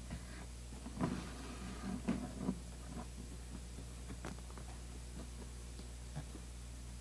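Leather and twine being handled: soft rustles and creaks as twine is pulled and knotted against a leather chair cover, mostly between about one and two and a half seconds in, with a few small clicks later, over a steady low hum.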